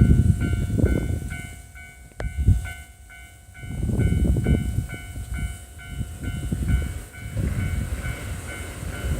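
Level crossing warning bell ringing in a quick, even, repeating ding, over the low rumble and clatter of a Marine Liner electric train running past the crossing.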